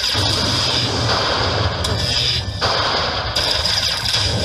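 Lightning Link poker machine sounding its crackling electric-zap effects as bonus prize values are collected into the win meter. It is a loud, dense crackle with a brief break about two and a half seconds in.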